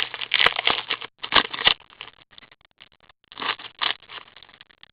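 2014-15 Black Diamond hockey cards and their pack wrappers being handled: quick rustling, crinkling and scraping in short bursts, thinning out after about two seconds.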